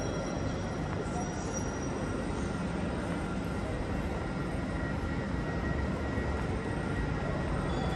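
Steady low rumble of a large railway station's ambient noise echoing under the trainshed roof, with a few faint steady high tones.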